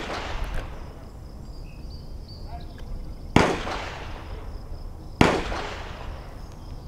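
Two gunshots about two seconds apart, each a sharp crack followed by an echo that dies away over about a second. The echo of an earlier shot is still fading as it begins.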